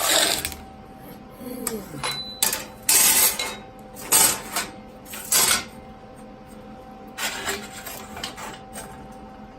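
Metal pieces and tools being handled on a steel welding table while a tube-steel frame is squared up: a series of short scrapes and clatters, about five of them, the loudest around three seconds in.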